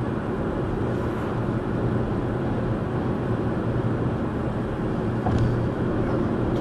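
Steady low drone of car cabin noise: engine and road noise heard from inside the car. A short click comes about five seconds in.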